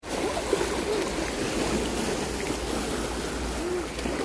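Shallow seawater sloshing and splashing steadily around people wading and handling a fishing net, with a few faint voices in the background.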